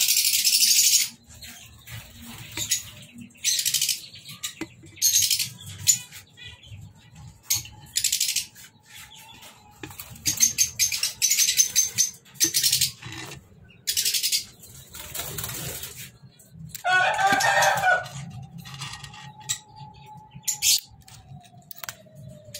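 Caged aviary birds: repeated short bursts of wing flapping and bird calls, with the rustle of dry nest straw as the nests are handled.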